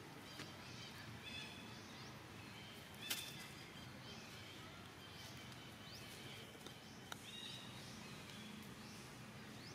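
Birds chirping: many short, high calls, some rising and some falling, over a low steady outdoor hum. A sharp click comes about three seconds in.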